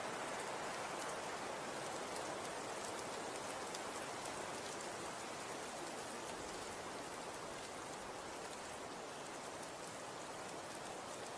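Snow falling and pattering on a surface: a steady soft hiss scattered with faint fine ticks.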